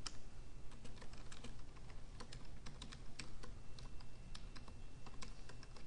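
Typing on a computer keyboard: a run of irregular key clicks.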